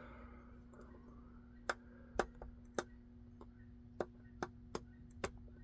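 Sharp metallic clicks from a hook pick and tension wrench working the pin stack of a Little John padlock, about seven clicks at irregular intervals as pins are lifted, set and overset, over a faint steady hum.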